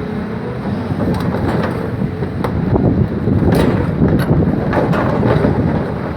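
Doosan DX380LC excavator working under load against a marble block, with a dense grinding rumble and repeated sharp knocks and cracks of stone and steel, growing louder about halfway through.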